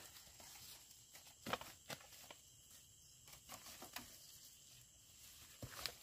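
Faint footsteps and rustling in forest undergrowth: a few soft crunches and snaps scattered through near silence.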